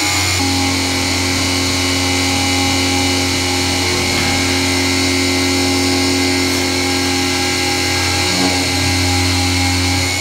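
BF20 CNC milling machine, driven by a 1 hp three-phase motor through a toothed belt and pulleys, milling an aluminium plate with an end mill. It makes a loud, steady hum and whine with cutting noise; the pitch changes about half a second in and again about eight seconds in.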